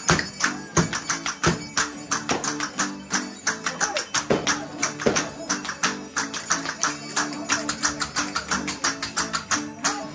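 Live Panamanian folk music: held melody notes over a fast, even percussion beat of about five or six strikes a second.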